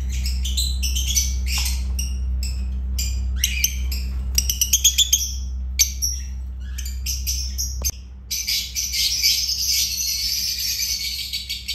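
Lovebirds chirping and squawking, short high calls with a quick run of sharp calls about halfway through, then many birds chattering together without a break over the last few seconds. A steady low hum runs underneath and drops away about eight seconds in.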